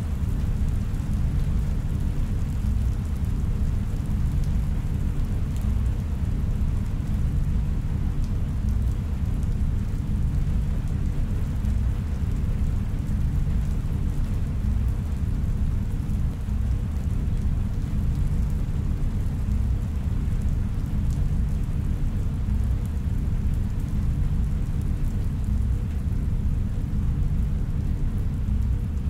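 Steady, deep low rumble of a sci-fi room ambience, with a faint rain-like hiss above it and no distinct events.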